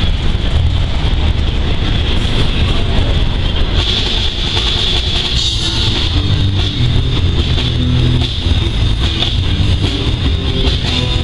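Live rock band with guitar and drums playing, mixed with the steady running noise of a double-stack intermodal freight train's wheels on the rails as it passes.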